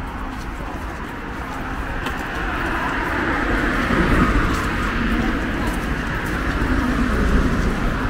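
City street traffic: cars passing on the road, growing louder about three seconds in and staying up through the rest.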